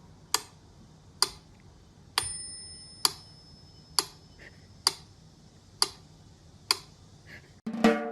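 Eight evenly spaced sharp ticks, a little under one a second, like a clock ticking; the third one, about two seconds in, is followed by a brief bell-like ring.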